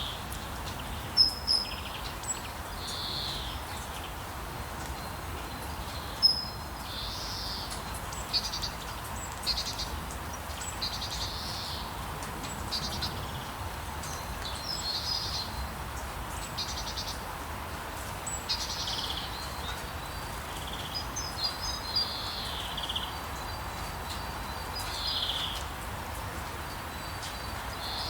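Small songbirds calling: repeated short chirps and buzzy trills, several a few seconds apart, over a steady hiss of light rain. A few sharp ticks stand out, the loudest about a second in and again about six seconds in.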